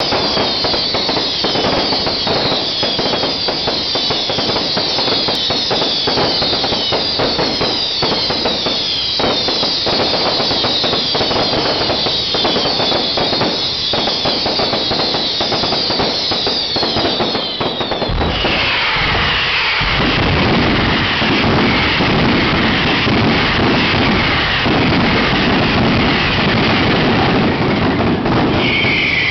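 Daytime festival fireworks by Grasso e La Rosa going off in a rapid, continuous barrage of bangs, with many short high falling whistles. About eighteen seconds in, the barrage thickens into a denser, deeper rumble of explosions, and a longer falling whistle sounds near the end.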